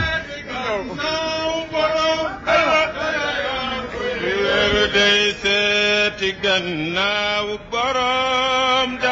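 A man's voice chanting an Arabic devotional poem, drawing out long held notes that bend and dip between phrases.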